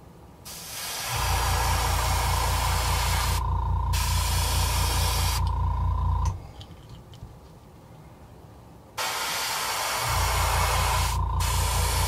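Airbrush spraying thinned green acrylic paint in an even hiss, stopping for about three seconds in the middle and starting again, with two short breaks near the end. Beneath it an air compressor runs with a low pulsing hum that cuts out soon after the first spray stops and comes back about a second after spraying resumes.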